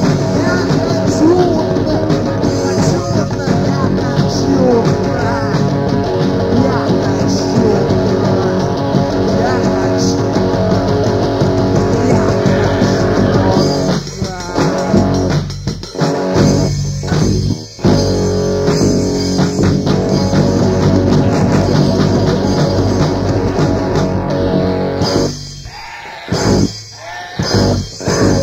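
A rock band recording with electric guitar, bass and drums. Between about 14 and 18 seconds in, the band plays stop-start hits with short breaks. Near the end it drops to quieter, broken playing as the song winds down.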